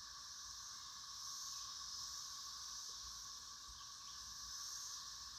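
A steady chorus of insects singing in summer trees: a continuous lower trill with a high buzz above it that swells and fades every second or so.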